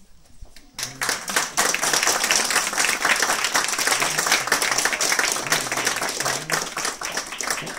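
A room full of people applauding, a dense, fast patter of many hands clapping that starts about a second in and dies away near the end.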